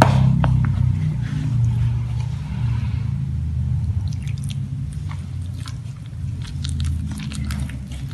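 Hand kneading flour and warm water into dough in a bowl: wet squishing and crunching, with many short sharp clicks in the second half, over a low steady hum.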